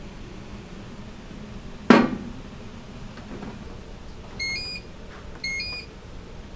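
A single sharp knock about two seconds in, then an electronic beeper sounding a two-note rising beep twice, about a second apart.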